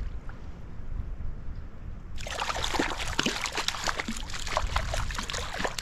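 Water splashing irregularly from about two seconds in as a small hooked brown trout thrashes at the surface while it is landed, over a low wind rumble on the microphone.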